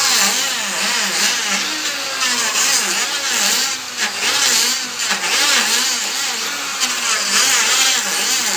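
Wood planing machine running loudly as it cuts a timber beam, a steady machine noise whose pitch wavers up and down.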